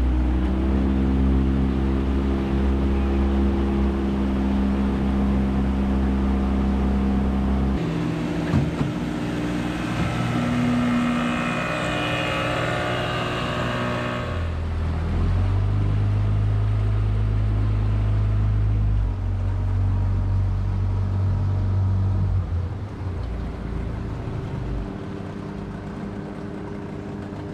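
Outboard motor of a small aluminium tinny running steadily at speed, with water rushing along the hull. The engine note shifts a couple of times, then becomes lower and quieter about three-quarters of the way through as the boat slows.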